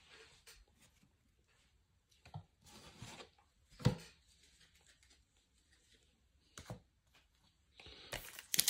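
Faint, scattered handling noises from trading cards and packaging: soft rustles and light taps, the sharpest knock about four seconds in, with a rustle building near the end.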